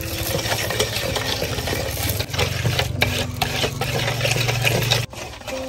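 Spoon stirring a garlic-and-seasoning marinade in a bowl, with clinks and scrapes, over a steady low mechanical hum that cuts off suddenly about five seconds in.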